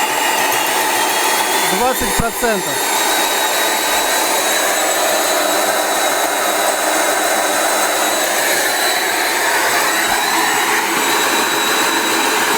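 Vacuum cleaner's brushed motor and fan running fast and steady, fed with 7 Hz pulses from a variac turned up to 250 V; it runs about like a motor plugged straight into the mains.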